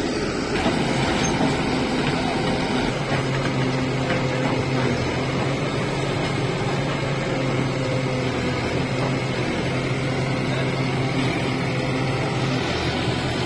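Diesel engines of a Tata Hitachi Shinrai 76 HP backhoe loader and a Swaraj 744 tractor running together in a steady low hum while the backhoe works its digging arm over the tractor trolley.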